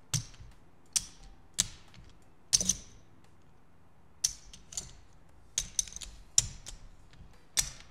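Casino chips clacking as they are lifted off a stack and set down one at a time on the felt of a craps layout: about ten sharp clicks at uneven intervals, a small cluster of them a little over two and a half seconds in.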